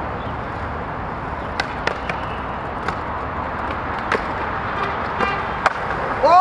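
Skateboard wheels rolling over stone paving, with several sharp clacks from the board popping and landing and a short scrape as it grinds along a stone ledge.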